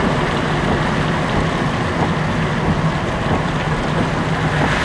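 Steady drone of a car's engine with tyre noise on a wet road, heard from inside the cabin.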